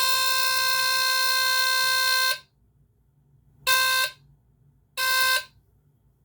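Sears 439.57003 smoke alarm's horn sounding on test: one steady tone of about two and a half seconds, then two short blasts a little over a second apart. The sound is really clean.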